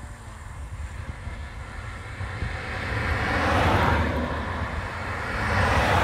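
Vehicles passing on a road: rushing tyre and engine noise swells to a peak a little past halfway, eases, then swells again near the end, over a steady low rumble.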